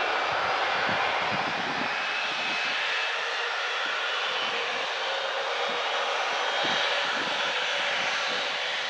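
Boeing 767-300's twin turbofan engines running at low taxi power as the jet turns to line up: a steady rushing hum with a faint high whine over it.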